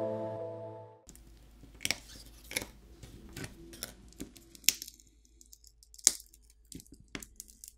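Background music fading out in the first second, then a run of sharp clicks and cracks at uneven spacing as a smartphone battery is pried up off its very strong adhesive.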